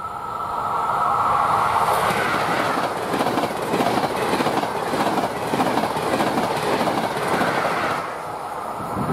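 Intercity passenger train passing at speed: a rising rush as it closes in, then a fast, regular clatter of wheels running over the track as the coaches go by, easing off near the end once it has passed.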